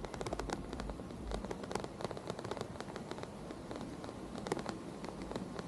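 Rain falling, with many close drops ticking and crackling over a steady rush of water.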